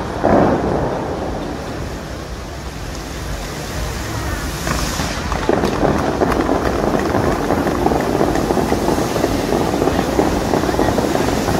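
Dubai Fountain's water jets rushing and splashing down into the lake, a dense steady wash of water noise that swells and grows louder about halfway through, with wind buffeting the microphone.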